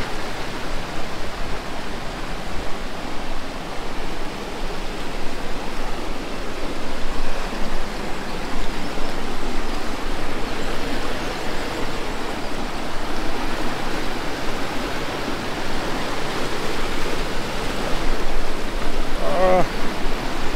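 Loud, steady rush of water from a mountain waterfall and its stream.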